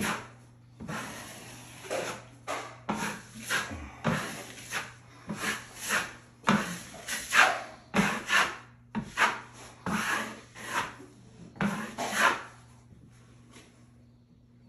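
Steel drywall knife scraping and spreading setting-type joint compound (hot mud) across a wall. It makes a rapid run of rasping swipes, about two a second, that stop shortly before the end.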